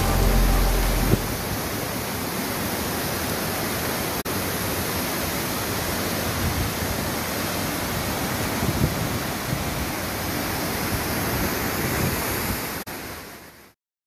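Steady rush of falling and flowing water from a mountain creek and waterfall, an even hiss with no pitch. The tail of some music ends about a second in, and the water sound fades out shortly before the end.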